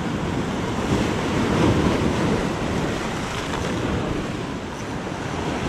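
Heavy surf breaking and washing over a rocky shoreline in a continuous roar that swells about a second in, eases a little near the end and builds again, with wind buffeting the microphone.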